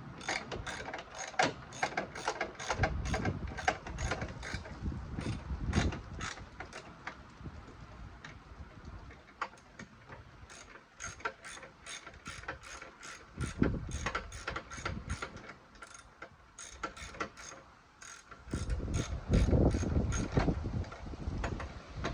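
Hand ratchet wrench clicking in runs as a long mounting bolt is turned, with short pauses between strokes. In the last few seconds, louder low knocking and handling noise.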